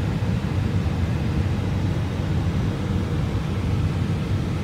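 Steady low rumble of a vehicle driving, heard from inside it, with no distinct events.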